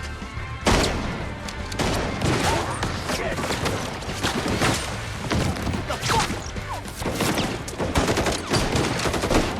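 Gunfire in a movie action scene: a dense fusillade of rapid shots that starts suddenly under a second in and keeps going, with background music.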